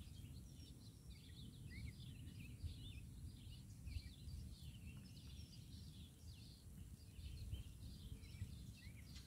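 Small birds chirping faintly and continuously, many short calls overlapping, over a low steady rumble.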